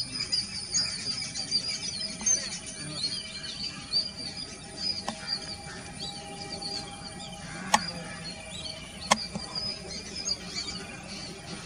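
Small birds chirping in quick, repeated short calls, busiest in the first few seconds, over a faint steady whine from the taxiing airliner's jet engines. Two sharp clicks come a little over a second apart, late on.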